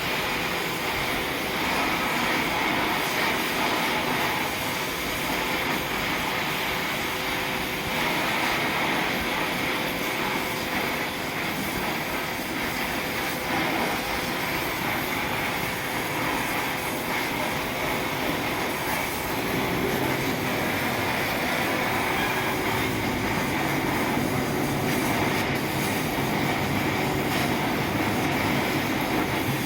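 Steady hissing rush of a gas welding torch flame, unbroken and even in level.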